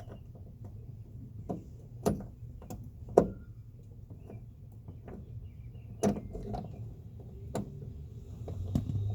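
Scattered sharp metallic clicks and knocks, the loudest about three seconds in, as tools and the striker-bolt parts are worked against a truck's steel door pillar.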